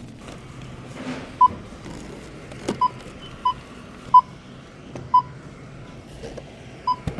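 Checkout barcode scanner beeping as items are scanned: about six short, identical beeps at uneven intervals.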